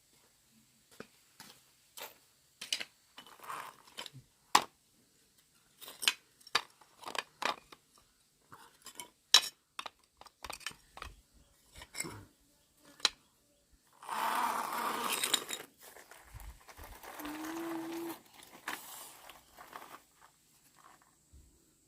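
Irregular light clicks and knocks, like objects being handled, then two longer stretches of scraping and rustling noise about 14 and 17 seconds in.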